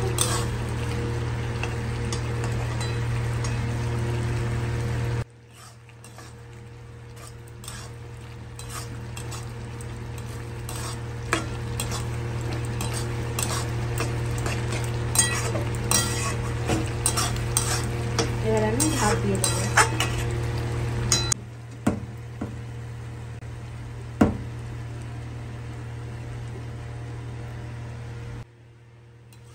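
Metal spatula stirring and scraping a chicken curry in a metal kadai, with frequent small clicks of metal on metal over a low sizzle and a steady hum. The background changes abruptly about five seconds in and again about two-thirds of the way through, where the footage is cut.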